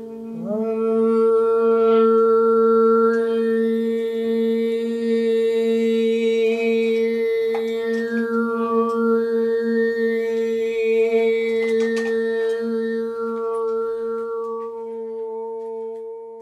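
Metal singing bowl rubbed around its rim with a wooden striker, giving a steady ringing drone whose low tone pulses slowly. About half a second in, a man's voice joins with a long hummed note that blends into the bowl, its overtones shifting in the middle, and both taper off near the end.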